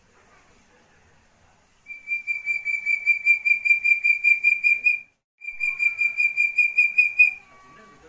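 Young Javan hill-partridge calling: two runs of quick, repeated whistled notes on one high pitch, about four notes a second, separated by a brief pause. The first run grows louder as it goes.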